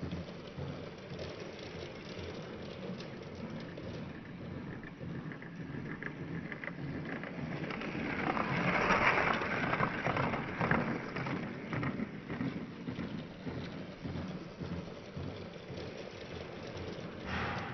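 Lego train rolling along plastic track: a steady rumbling clatter that swells as it passes about halfway through, then fades.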